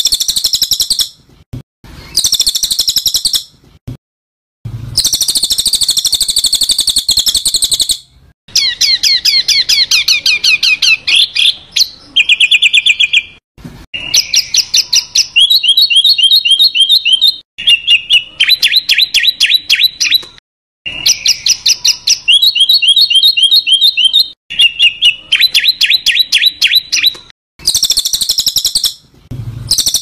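Songbird's harsh, chattering song: fast rattling trills and buzzy scolding notes in high phrases a second or two long, broken by short pauses. Some of the same phrases come round again.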